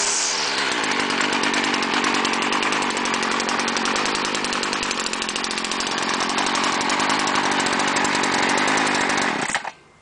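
Stihl FS 56 RC strimmer's small two-stroke engine dropping back from a throttle blip to a steady idle. It cuts out abruptly near the end as it is switched off.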